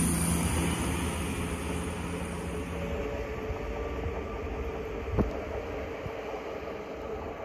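Arriva Alstom Coradia LINT diesel railcar moving away after passing close by, its engine drone and wheel noise fading steadily. A single sharp knock sounds about five seconds in.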